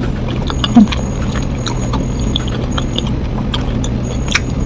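Close-up chewing and biting of crispy fried fish: many small scattered crunches and mouth clicks, over a steady low hum.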